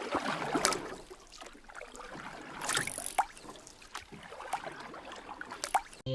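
Water splashing and lapping around an inflatable paddle board or kayak, with irregular sharp splashes like paddle strokes. It cuts off suddenly near the end.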